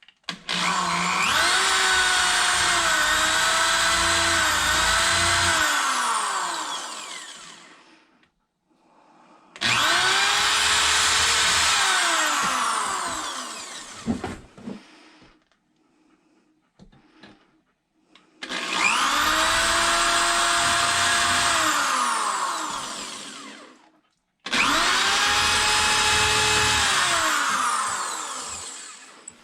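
Electric power saw run four times, its motor whining up to speed, holding for several seconds and then winding down as the blade coasts to a stop, consistent with cutting lengths of wood.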